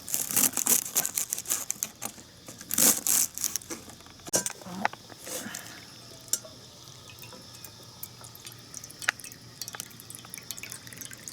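Water poured and splashing into cookware, with irregular clinks and knocks of the vessels, busiest in the first three seconds or so, then occasional single clicks of handling.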